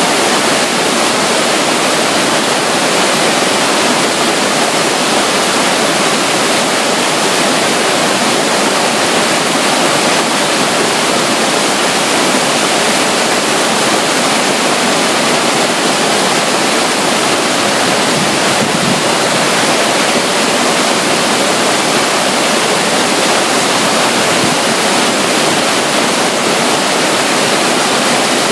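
Steady, unbroken rush of running water from a small flow of water at the side of a river near a waterfall.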